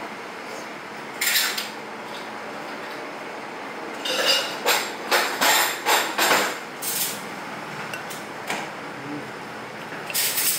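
Metal spoon clinking and scraping against a ceramic bowl as food is scooped up: a single clink, then a quick run of six or seven clatters from about four to seven seconds in, and two more single clinks near the end, over steady background noise.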